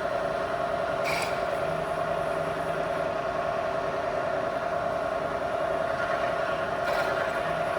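Bridgeport CNC knee mill running, with a steady high whine from its spindle drive. Two short sharp clicks, about a second in and near the end.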